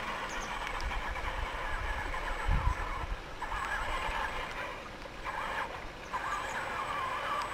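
The electric motor and gearbox of an RC Unimog U406 scale crawler whining in stretches of throttle, the pitch wavering as it crawls over wet rock, with short pauses between. Low wind rumble on the microphone, and a brief low thump about two and a half seconds in.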